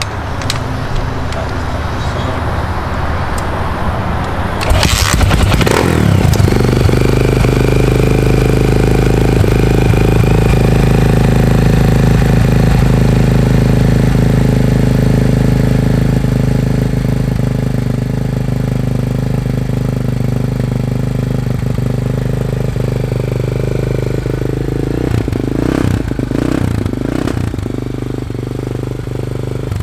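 Honda XR400 single-cylinder four-stroke dirt bike, fitted with a 440 big-bore kit, FMF exhaust and new Mikuni carburettor, starting about five seconds in and then idling steadily, with a few short rises in revs near the end.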